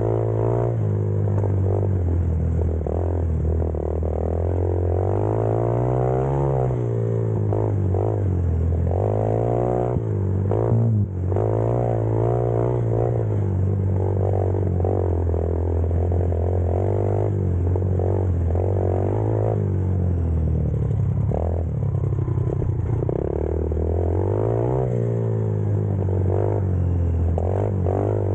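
Engine of an X-Pro Storm off-road vehicle running while it is driven, its pitch rising and falling with the throttle several times, over rattling from the vehicle. A brief knock about eleven seconds in.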